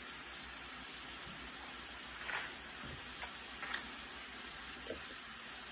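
Paper cupcake liners being separated and set into a muffin pan, giving a few soft clicks and taps over a steady faint hiss.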